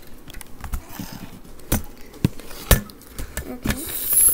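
Handling noise from a hand-held phone camera: scattered light knocks and taps, with a short rush of hiss near the end.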